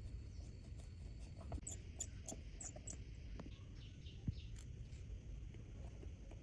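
Faint, scattered clicks and light scratchy ticks of small tools working on watch parts, with a quick cluster of sharp, high clicks about two to three seconds in.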